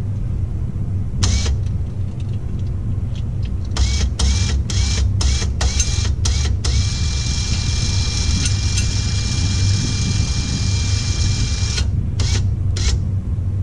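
A 3,500 lb electric winch on a trailer-mounted truck crane being jogged: its motor whines in short on-off bursts, then runs steadily for about five seconds before a few more short bursts near the end. A steady low rumble runs underneath.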